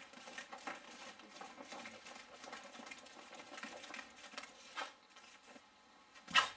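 Soft scuffing and rustling of taekwondo footwork and uniforms as two practitioners perform kicks on foam mats, with one sharp, loud crack near the end.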